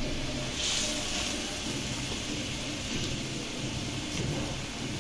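Thin potato and tomato broth boiling hard in a karahi: a steady bubbling hiss, briefly brighter about a second in.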